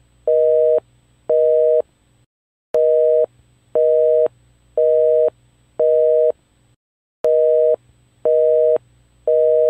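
Telephone busy signal: a two-tone beep, half a second on and half a second off, about once a second, with a brief break about two and a half seconds in and again about seven seconds in, where the effect restarts.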